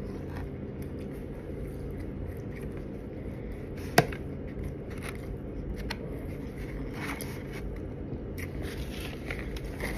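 Eating sounds: chewing a taco and fingers handling food in a foam takeout container, over a steady low room hum. One sharp click or crack about four seconds in, with a few fainter clicks later.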